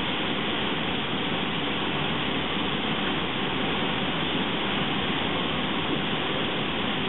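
Steady rush of river water at Brooks Falls.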